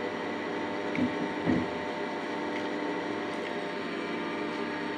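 Water being poured steadily into a pot of meat pieces, over a steady hum.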